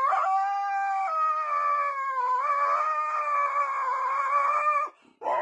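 Dog howling: one long, steady howl lasting about five seconds, then a second howl starting near the end.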